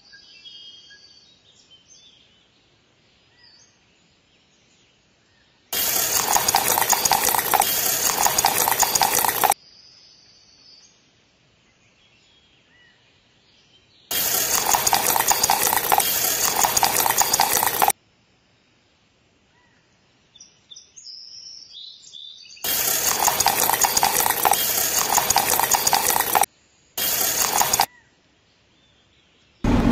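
Wet cement slurry poured from a small tin-can mixer drum into a little metal bucket and from the bucket into paper-tube molds. It comes as three loud bursts of scraping and splashing, each a few seconds long, plus a shorter one near the end, with faint scrapes between them.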